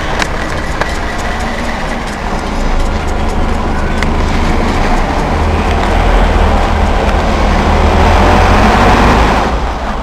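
City bus engine and road noise heard from inside the moving bus, with rattling clicks in the first couple of seconds. The low engine rumble grows louder about three seconds in and stays strong until near the end.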